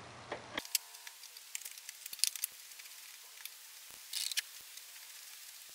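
Faint, scattered clicks and light metallic ticks of a wrench working the throttle cable adjuster on a golf cart, with a short rattle about four seconds in.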